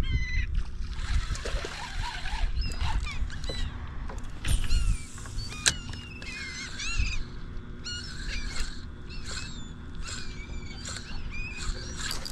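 Birds calling over and over, each a short call that bends up and down in pitch, over a steady low rumble, with a sharp click about halfway through.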